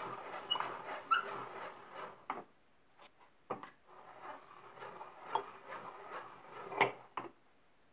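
Hand-cranked meat grinder being turned, pressing chestnut purée out through its plate in strands: faint, irregular squeaks and a few sharp clicks.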